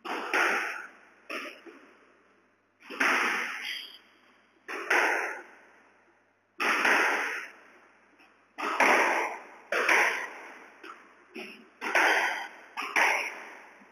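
Squash rally: the ball is struck by rackets and smacks off the court walls every second or two, coming quicker near the end. Each sharp hit rings on with an echo in the enclosed court.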